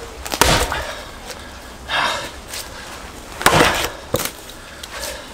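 Splitting maul striking firewood logs: a few sharp whacks of steel on wood a second or more apart, the wood cracking apart.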